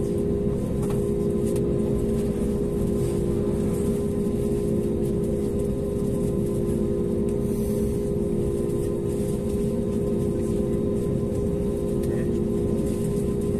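Steady hum inside an Airbus A320neo cabin, parked for de-icing, with a steady droning tone. Over it a hiss that swells and fades as de-icing fluid is sprayed and runs over the fuselage.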